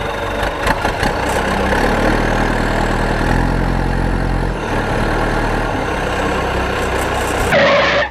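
A heavy vehicle's engine running steadily at idle, starting abruptly. A short burst of louder, higher noise comes just before it cuts off.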